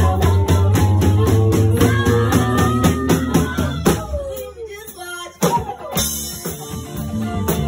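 Live band playing with drum kit, bass and guitar on a steady beat. About four seconds in the music drops out briefly, with a falling slide in pitch, before the band comes back in.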